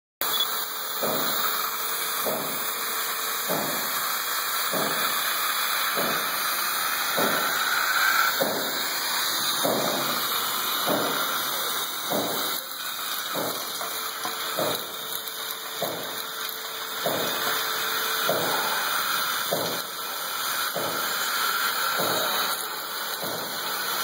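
Compressed-air-powered industrial vacuum cleaner running: a steady rushing hiss of air through its suction head and hose, with a regular pulse about every 1.2 seconds.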